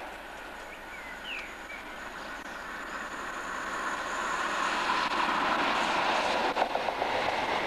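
Diesel-led train approaching, its locomotive and wheels on the rails growing steadily louder as it nears.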